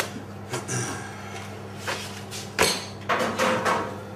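Raw chicken pieces and vegetables being handled in a stainless steel tray: a few sharp knocks and clatters, the loudest about two and a half seconds in, then a short stretch of rustling, over a steady low hum.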